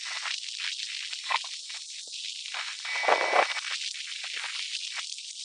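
Hot air rework station blowing onto a phone mainboard to desolder an IC, an uneven hiss with crackling that swells about three seconds in.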